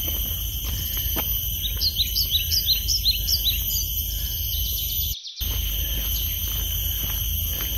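Birds chirping outdoors: a quick run of short, rising chirps in the first half, over a steady high-pitched drone and a low rumble of background noise. The sound drops out for a moment about five seconds in.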